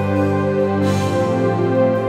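Slow instrumental worship music of long held chords, the chord shifting about a second in.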